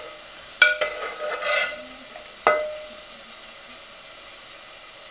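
A metal serving spoon knocks twice against a metal pot, ringing briefly each time, with some scraping as beans are ladled out. Under it runs a steady sizzle of food frying in a pan.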